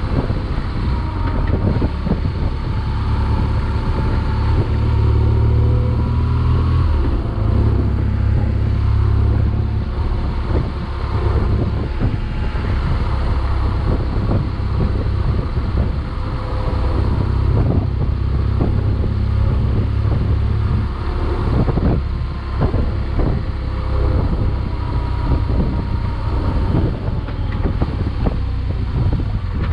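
BMW GS motorcycle's engine running while riding, its pitch rising and falling with the throttle through the bends, under a heavy rumble of wind on the microphone.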